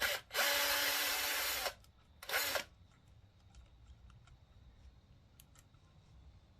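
Cordless drill with a socket spinning out the clutch pressure plate's spring-loaded 10mm bolts: a short blip of the motor, a longer run of about a second and a half, then another short blip, with a steady motor whine.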